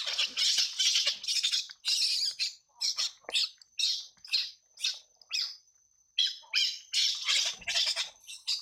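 Baby monkey screaming in a rapid run of high shrieks, with a short break about six seconds in: the distress cries of a small monkey being attacked by another monkey.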